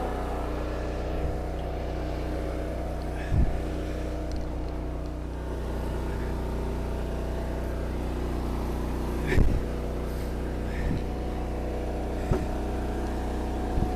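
Eastonmade 22-28 hydraulic log splitter's engine running steadily, with a few sharp knocks, the loudest about three and a half and nine and a half seconds in.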